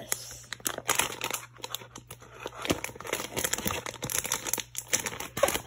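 Crinkling and rustling of the packaging of a Pokémon card mini-binder box as it is handled and worked at to get it open, with irregular crackles and small tearing sounds.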